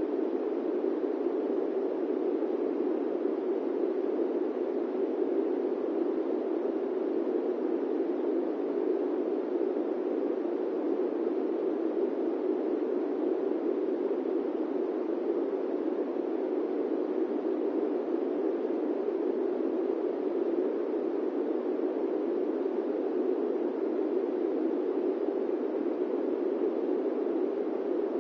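Steady airplane cabin noise used as white noise: an even, unchanging rush, deepest and strongest in the lower middle range, without any distinct engine note.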